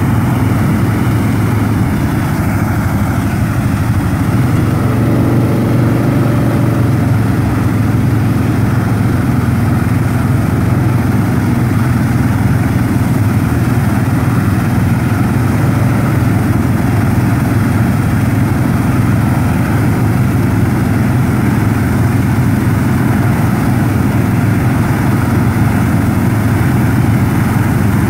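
Tractor engine and a bar of propane flame-weeding burners running together: a steady, loud roar with a low hum underneath.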